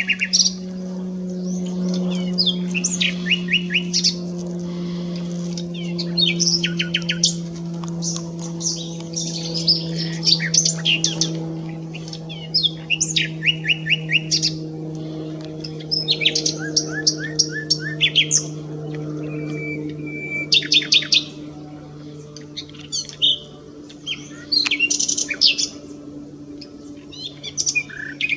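Common nightingale singing: varied phrases of fast repeated notes and trills, delivered one after another with short pauses. A steady low hum that slowly drops in pitch runs underneath.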